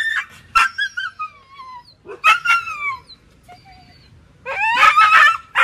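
Wounded stray dog yelping and whimpering as it is handled, a sign of pain from its deep cut wounds: high, downward-falling cries in several bouts, with the longest and loudest run of cries near the end.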